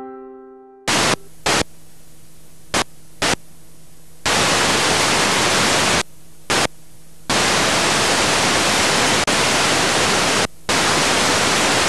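Analogue television static, a hiss of white noise that keeps cutting in loudly and dropping back. It comes first in short bursts and then in long loud stretches, and a quieter hiss with a faint low hum lies between them. The tail of a piano note dies away in the first second.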